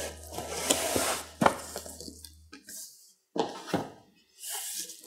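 Packaging being handled inside a cardboard shipping box: rustling with a few light knocks and clicks as the contents are lifted out.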